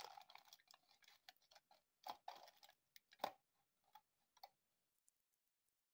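Faint crinkling and crackling of aluminium foil being pressed over a jug as a cover, in scattered small clicks, the clearest about two seconds in and just after three seconds in.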